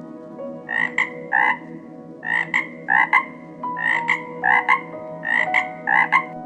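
Short animal calls repeated about fifteen times, mostly in quick pairs, each with a sharp start, over a soft bed of steady held tones.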